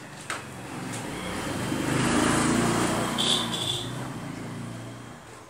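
A motor vehicle passing by, its engine swelling to a peak about two seconds in and then fading away.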